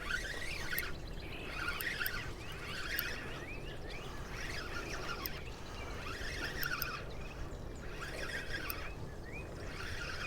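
A songbird singing, repeating short chirpy phrases about once a second over a steady low background rush.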